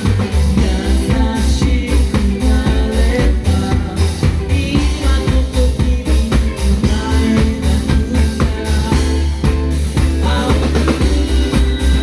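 A live band playing a song, with drums keeping a steady beat over sustained low bass notes.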